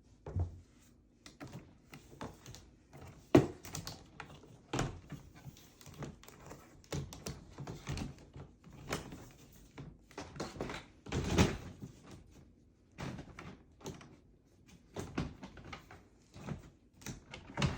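Collapsible stackable storage bins being put together: panels unfolded and snapped into place, giving a string of irregular clicks, knocks and thunks, the loudest about three seconds in and again around eleven seconds.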